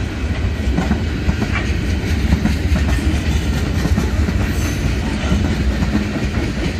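Freight train's open-top hopper cars rolling past, a steady low rumble of steel wheels on the rails.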